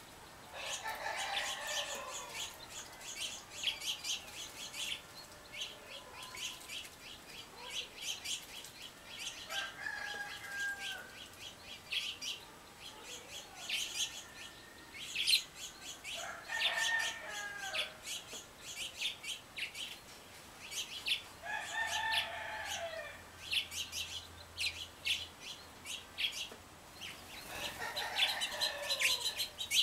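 Wild birds calling: a steady stream of rapid high chips and twitters, with a lower, fuller call about a second long that drops in pitch at its end, repeated five times at intervals of about five or six seconds.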